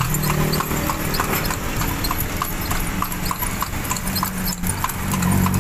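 A carriage horse's shod hooves clip-clopping on asphalt at a steady pace, about three hoof strikes a second, as it pulls a kalesa through traffic.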